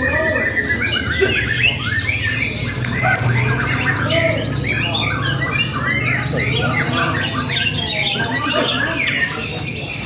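Several caged contest songbirds singing at once: a dense, unbroken tangle of whistles, chirps and trills.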